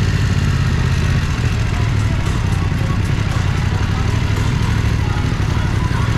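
BMW F900R's parallel-twin engine running steadily at low revs, a low, even exhaust note, with faint street noise behind it.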